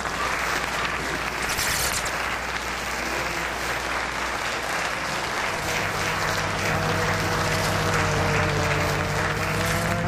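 Sustained applause-like clapping noise. About halfway through, a low steady hum and a higher tone that slowly rises join it.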